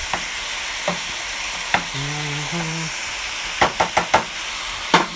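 Sliced beef sizzling in a nonstick frying pan, stirred with a wooden spoon that knocks against the pan now and then, with a quick run of four knocks near the end.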